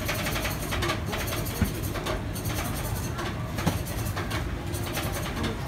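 Steady din of a busy street market, with two short sharp clicks, about a second and a half and about three and a half seconds in.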